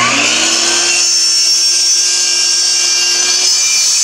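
Miter saw motor spinning up with a rising whine, then running steady at full speed as its blade cuts through green PVC pipe.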